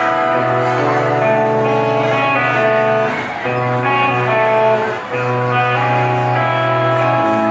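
Live band playing an instrumental passage, guitar to the fore over long held low notes, heard from the audience through the hall.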